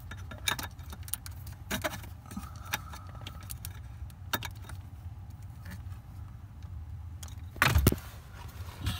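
Scattered light plastic clicks and rattles as a replacement brake light switch is pushed and twisted into its bracket at the brake pedal of a 2010 Dodge Ram 1500, with a louder knock a little before the end. A steady low hum runs underneath.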